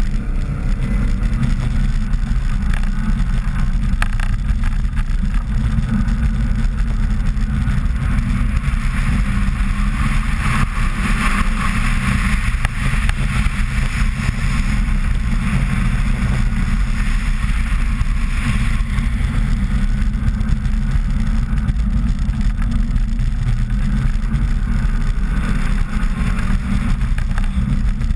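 2000 Subaru Impreza 2.5RS's 2.5-litre flat-four engine running under load as the car drives on ice, with the hiss of studded ice racing tyres on the ice. The steady heavy rumble goes on throughout, and the higher hiss grows louder for a few seconds around the middle.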